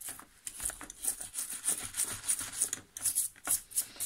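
Toothbrush bristles scrubbing a diecast metal model car body with toothpaste: quick back-and-forth scratchy strokes, about three or four a second. The strokes scrub off paint that a stripper has already loosened.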